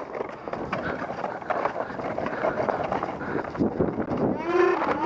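Footsteps and camera jostle as a player runs across pavement, with rough, clattering noise throughout. Near the end comes a person's long, drawn-out shout.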